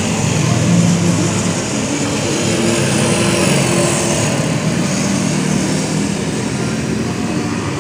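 Two small motorcycles passing one after another, their engines humming over a steady road and traffic noise.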